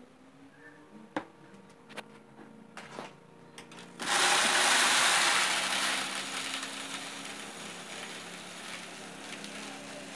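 A few light clicks, then uncooked rice grains poured: a loud rushing rattle that starts suddenly about four seconds in and eases after a couple of seconds but keeps going.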